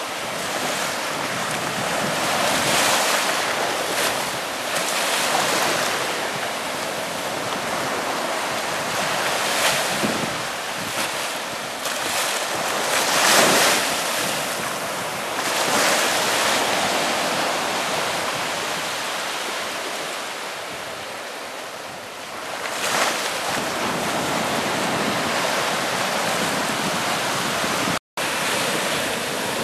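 Ocean surf breaking and washing around metal boxes standing in the shallows, the rush swelling several times as waves come in; the biggest wave, about halfway through, breaks right over the boxes. The sound drops out for an instant near the end.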